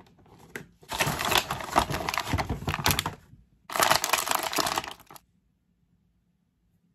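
Crinkling and crackling of plastic action-figure packaging being handled and pulled open, in two spells of a couple of seconds each.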